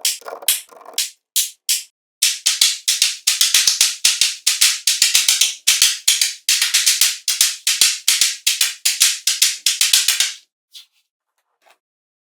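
A rapid, irregular series of sharp clicks and pops, dense for most of the stretch and stopping abruptly about ten seconds in.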